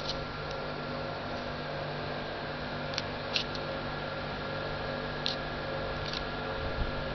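Steady electrical hum and hiss, with a few short faint clicks scattered through it.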